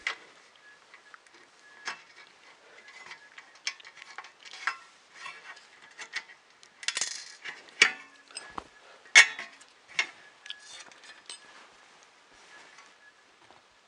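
Small plastic and metal parts of a 3D printer kit being handled and fitted together by hand: irregular clicks, taps and knocks, loudest about nine seconds in, over a faint steady high tone.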